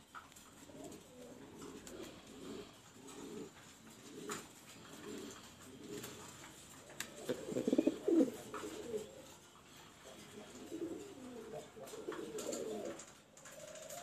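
Reverse wing pouter pigeons cooing: a run of low, repeated coos that swell to their loudest about halfway through.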